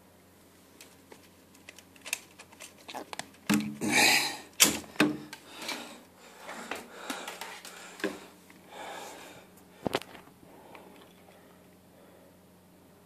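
Handling noise: a scattered run of clicks, knocks and rustles as objects are picked up and moved near the microphone, loudest about four to five seconds in and dying away after about ten seconds.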